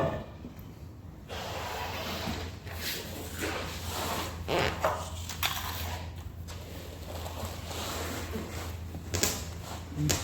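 Hands working on the intercooler and its brackets under a van's front bumper: irregular scraping and rubbing with several sharp knocks, the loudest about nine seconds in, over a low steady hum.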